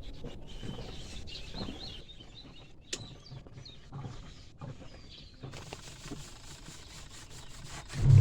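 Faint birds chirping over a low background hiss, with a single sharp click about three seconds in.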